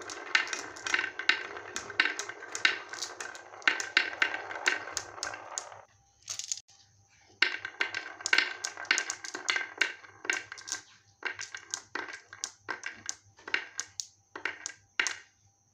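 Glass marbles rolling down the winding groove of a wooden marble-run slope and clacking against one another as they line up. For about the first six seconds a steady rolling rumble runs under quick clicks; after a short pause, separate clicks follow that thin out toward the end.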